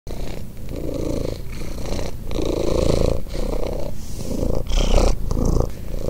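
Ginger domestic cat purring close up, in a steady rhythm of breaths in and out, just under a second per cycle.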